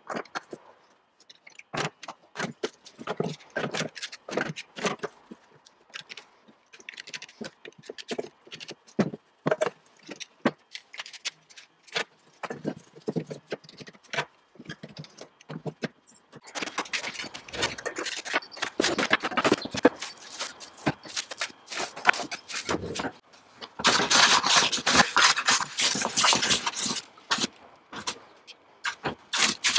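Plastic trigger bar clamps clicking and knocking as they are squeezed tight onto a glued-up wooden board: a run of separate sharp clicks. Partway through this gives way to a hand plane shaving a board, a steady run of rapid scraping strokes.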